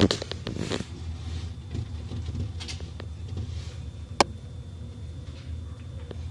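Soft rustling and scattered small clicks from newborn beagle puppies shuffling on the floor close to the microphone, over a steady low hum, with a louder stretch of rustling at the start and one sharp click about four seconds in.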